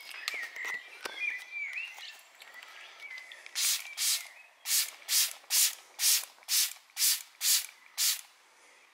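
Hand trigger spray bottle misting water onto ceramic-coated car paint to test its water beading. About ten quick sprays, roughly two a second, begin a few seconds in.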